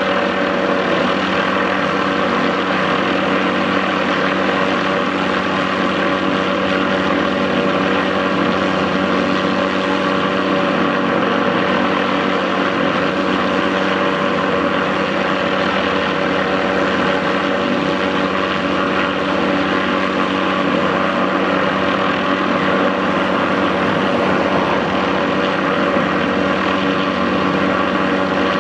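MD530F helicopter running steadily, its turbine and rotors making an even, unbroken drone.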